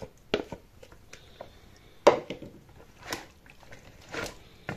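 Marinated diced pork and veal tipped from a plastic jar into a plastic colander and stirred with a wooden spatula to drain off the wine marinade: a few separate wet squelches and knocks, the loudest about two seconds in.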